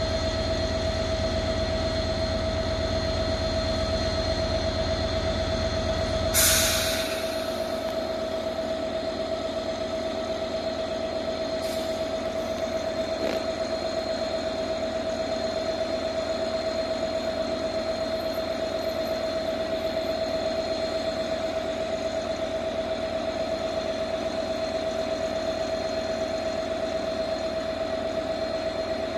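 Freight locomotive standing and idling at the head of a container train, a steady hum with a held whine over it. About six seconds in there is a short burst of hiss, after which the low rumble drops away.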